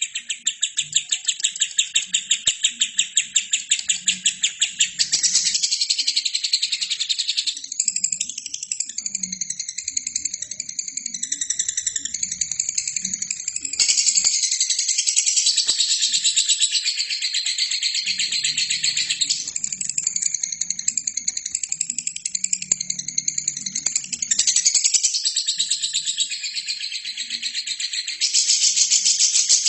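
Albino lovebird chattering in a long, unbroken stream of high, rapid chirps, with fast even trills at the start and again near the end.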